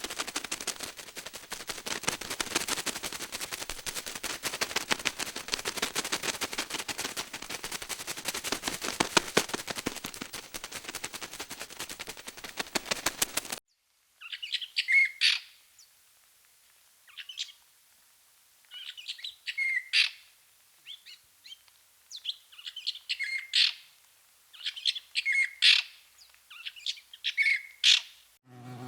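A dense, very rapid crackling rattle that cuts off suddenly after about thirteen seconds. Then a bird chirps in short, separate phrases with pauses between them.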